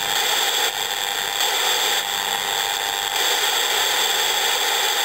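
A 27 MHz radio receiver's speaker giving a loud, steady rushing hiss with steady whistle-like tones in it. This is the interference from a toy walkie-talkie's superregenerative receiver being switched on and off 20 m away. The texture shifts briefly about a second in and again about three seconds in.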